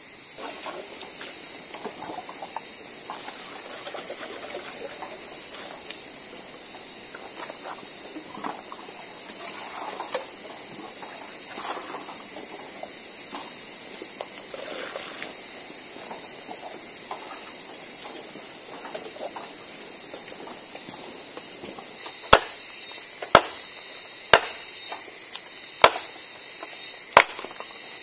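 Water running and splashing from the tap of a metal drum, over a steady high hiss. Near the end come five sharp knocks about a second apart, a blade striking the ground.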